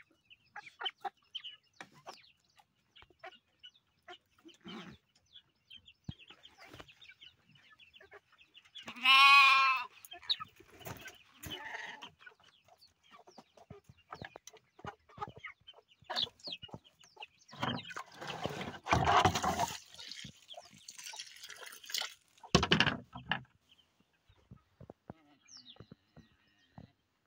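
Chickens in a coop: chicks peeping in short high chirps with hens clucking, and one loud, drawn-out hen squawk about nine seconds in. Bursts of rustling noise come past the middle and again near the end.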